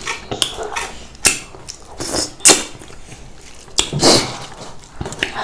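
Eating sounds at a dinner table: spoons clinking and scraping on plates, with short noisy mouth sounds, at irregular moments and loudest about halfway through.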